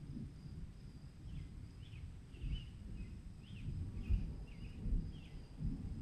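Gusting wind ambience, a low rumble that swells and falls. Over it come a series of short, high bird chirps in the middle stretch.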